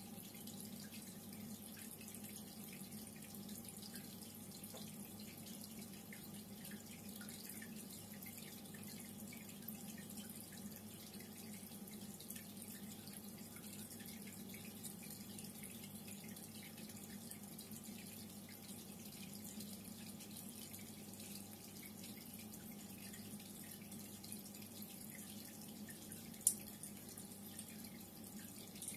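Reef aquarium water circulating, faint and steady: trickling and dripping with fine bubbling over a low hum. A single sharp click near the end.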